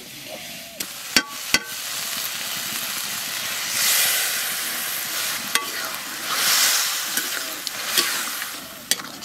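Water poured into a hot kadai of chicken frying in spice paste, hissing and sizzling, with two louder surges of hiss. A spatula knocks and scrapes against the pan now and then. The meat is being browned in its masala, with water added a little at a time.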